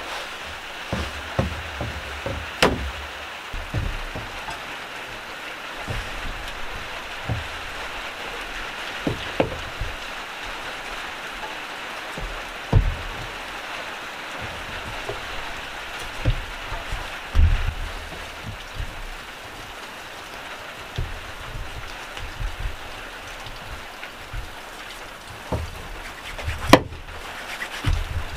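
A large knife cutting between the ribs of a rack of raw meat on a wooden table, with scattered knocks and thumps as the blade and meat hit the boards. A steady hiss runs underneath.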